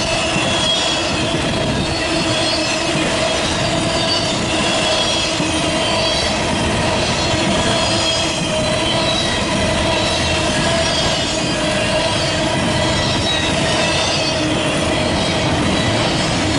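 Freight train cars rolling past steadily, wheels squealing faintly over a continuous rumble with some clickety-clack.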